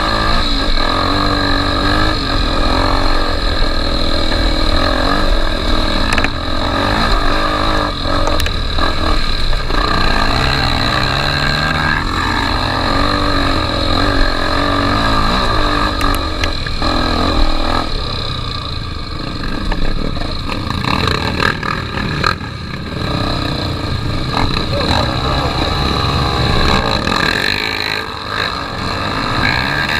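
Honda XR250 Tornado trail motorcycle's single-cylinder four-stroke engine running under way, its pitch rising and falling as the throttle is worked, with a steady hiss over it.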